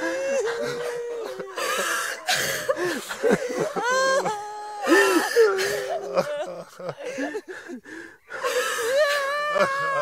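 A group of men and women crying together: several voices sob and wail over one another, with wheezing, gasping breaths in between.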